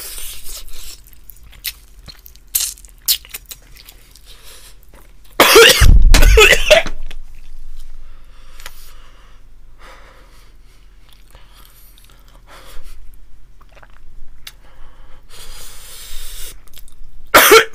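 A man coughing after food went down the wrong pipe: one hard fit of coughing lasting over a second about five and a half seconds in, then fainter sounds, and another sharp cough near the end.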